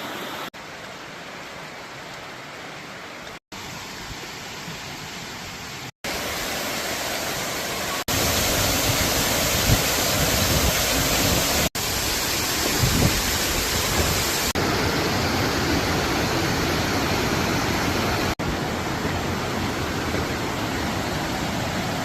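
Steady rushing of a waterfall, heard in a run of short clips spliced together, so the level jumps at each cut, with brief gaps at two of them; louder and fuller in the second half.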